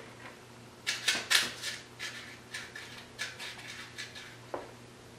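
Spoon scraping and tapping against a bowl and cupcake pan as cake batter is spooned out: a run of short scrapes and clicks, loudest about a second in and thinning out after about four seconds.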